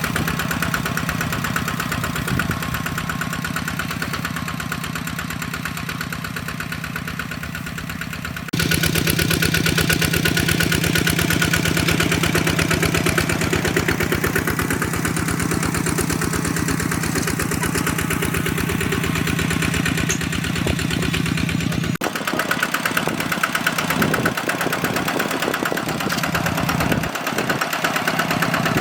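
Hand tractor's single-cylinder engine running steadily with a fast, even pulse. The sound shifts abruptly twice, getting louder about nine seconds in and changing again about two-thirds of the way through.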